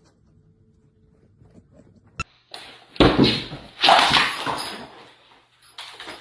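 A sharp click, then loud, rough animal cries in bursts from about three seconds in.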